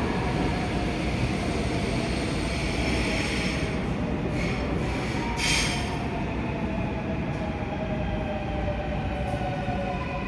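Seoul Subway Line 4 electric train running into the station behind the platform screen doors and slowing, its motor tones gliding slowly downward as it brakes. Short high-pitched squeals come a few seconds in.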